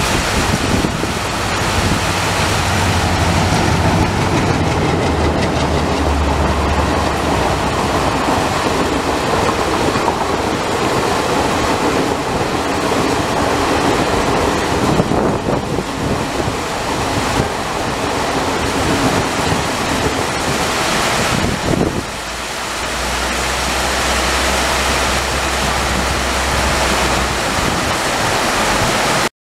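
A WDM3A diesel locomotive and its passenger coaches passing at speed in the rain: the engine's low drone, then the steady rush of the coaches' running gear. About 22 seconds in the sound drops to a quieter steady low hum, and it cuts off abruptly just before the end.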